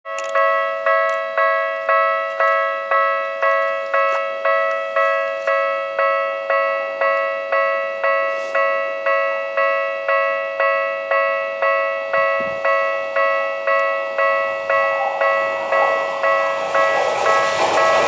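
Level crossing warning bell ringing steadily at about two strikes a second. From about fifteen seconds in, the running noise of an approaching Tokyu 5050-series electric train grows until it drowns the bell near the end.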